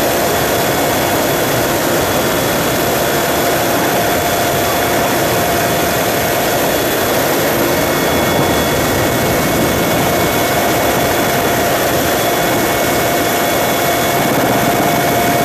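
Helicopter engine and rotor running steadily: a loud, even noise with a faint steady whine over it.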